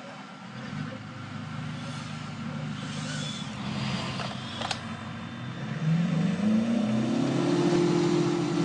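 An engine running with a steady hum that rises in pitch about six seconds in as it speeds up, then holds at the higher speed and grows louder. A single sharp click comes a little before the speed-up.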